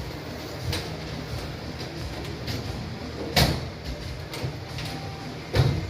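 Kia Smartstream G turbo four-cylinder engine idling steadily, with two loud clunks, one a little past the middle and one near the end.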